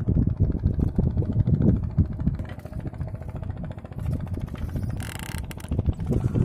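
A boat engine running with a low, uneven rumble, and a short hiss about five seconds in.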